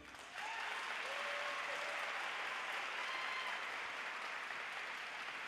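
Audience applauding steadily, with a few voices cheering out, starting a moment in as the program music stops.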